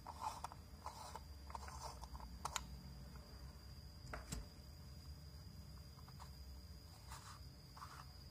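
Faint handling noises: a run of small plastic clicks and taps as the frosted dome cover and the body of an LED bulb are handled and set down on a table, then one sharp click a few seconds later and two brief rustles near the end. A thin steady whine and a low hum sit underneath.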